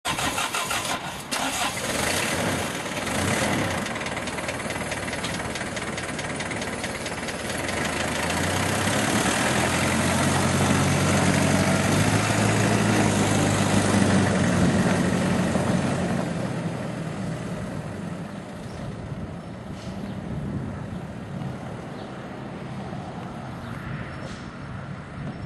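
Cab-over flatbed truck engine starting with a few sharp clicks, then running. It grows louder around the middle as the truck pulls away, then fades as it drives off.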